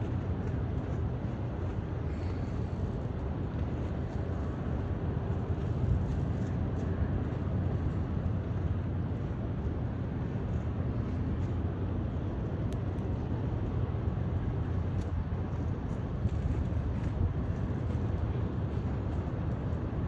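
Steady low rumble of a vessel's engines across the water, with wind buffeting the microphone.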